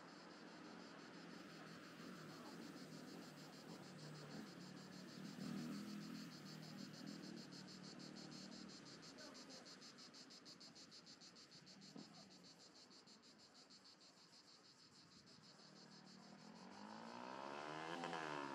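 Cicadas in the pine trees singing a steady, rapidly pulsing high buzz over faint road traffic. Near the end a car approaches and passes close, growing louder.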